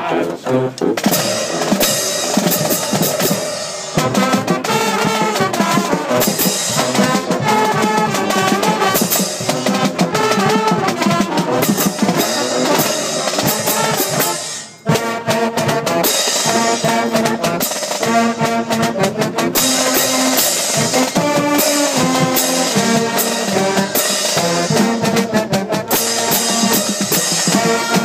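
Marching band playing a lively tune up close: saxophones, trumpets, trombones and low brass over a steady drum beat with cymbal crashes. The music breaks off for a moment about fifteen seconds in, then starts again.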